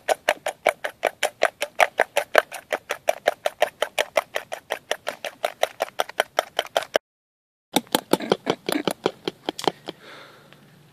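A whisk beating a foamy white mixture in a stainless steel pot, clicking against the metal about five times a second. After a short break past halfway it resumes for about two seconds, then stops near the end.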